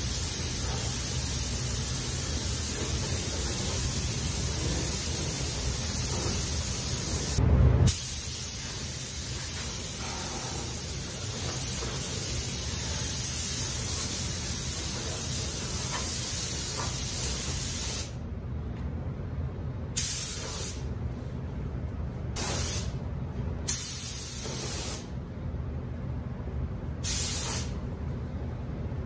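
Compressed-air paint spray gun hissing steadily as colour is laid on the truck cab's interior, with one brief break and a low thump about seven seconds in. From about eighteen seconds on the gun sprays in several short bursts with quieter gaps between, over a steady low rumble.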